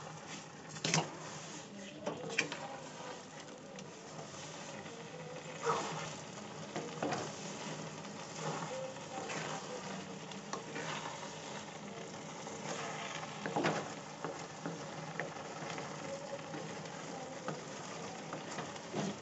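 A spatula stirring and scraping thick, moist carrot halwa in a metal pan over a gas flame as sugar is mixed in. There is a steady low sizzle of cooking, and the spatula knocks against the pan now and then.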